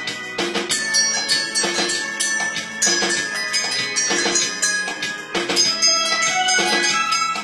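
A Lohatarang, a row of tuned steel bowls struck with small sticks, playing a melody: quick successive metallic strikes, each note ringing on at its own pitch.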